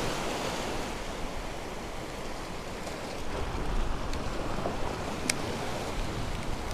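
Small waves breaking and washing against the stone blocks of a jetty, a steady rush of surf that swells a little about halfway through. A single sharp click about five seconds in.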